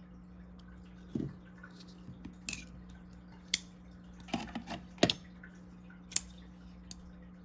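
Small button-lock folding knife being worked open and shut: about ten sharp metallic clicks at uneven intervals as the blade swings and locks, the loudest about five seconds in.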